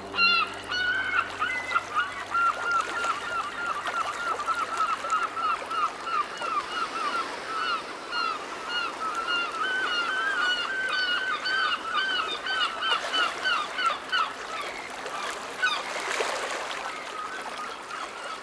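A flock of birds calling: many short, pitched calls overlapping densely, thinning out in the last few seconds.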